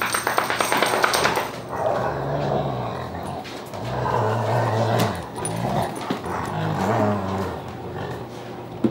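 Rottweilers grumbling in low, drawn-out growls, several bouts that rise and fall in pitch, after a second or so of rapid rasping at the start. The dogs are pressing round their owner, impatient to be fed.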